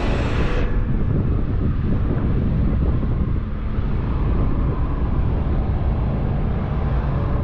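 Wind buffeting the microphone: a steady low rumble, with the higher hiss thinning out about half a second in.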